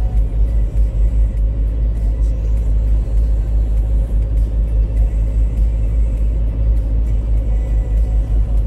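Steady low rumble of a car driving along an asphalt road, heard inside the cabin: engine, tyre and road noise with a faint steady hum.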